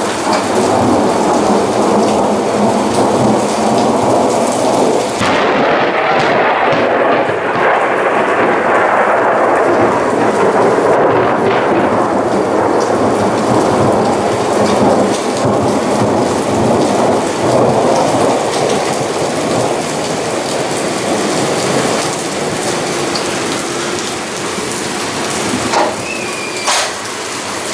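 Heavy rain pouring down, with thunder rumbling through it in a thunderstorm.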